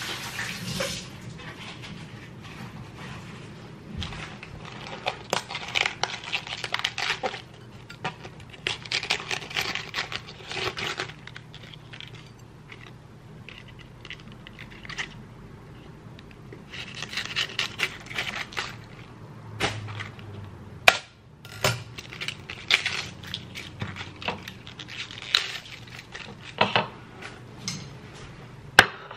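Kitchen food-prep handling: crisp lettuce leaves being pulled apart and laid on a stoneware plate, in bursts of rustling and crackling, with dishes and cutlery clinking. A few sharp clinks come in the second half.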